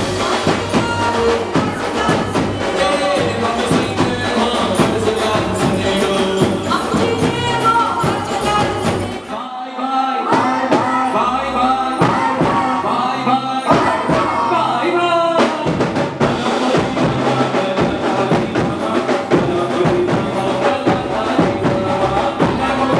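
Garba dance music from a live band: a steady driving drum and percussion beat under melody and vocals. About nine and a half seconds in the drums drop out briefly, and the full beat comes back about six seconds later.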